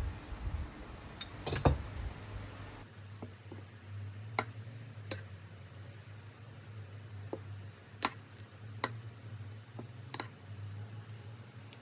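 Kitchenware clinking and tapping now and then, sharp single knocks a second or more apart over a low steady hum. Before that, for about the first three seconds, a rain-like hiss with one louder knock.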